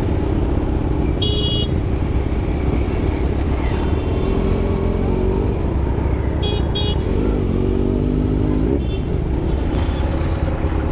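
Motorcycle on the move in traffic: a steady rumble of engine and wind, with the engine note rising and falling a few times in the middle. Vehicle horns give a short high toot about a second in, then two quick toots at around six and a half seconds.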